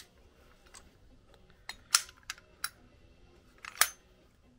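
A few light clicks and taps as a snowmobile's twin carburetor assembly is handled and turned over, its metal parts and linkage knocking together; the two sharpest clicks come about two seconds in and near the end.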